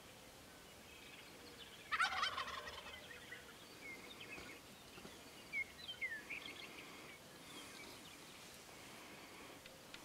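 Wild turkey gobbling once, a loud rattling gobble about two seconds in, followed by fainter short bird chirps over the next few seconds.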